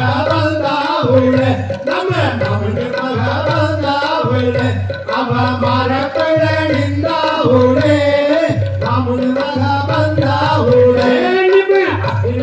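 Music for a Valli Kummi folk dance: a voice singing a melody over a steady, repeating drum rhythm.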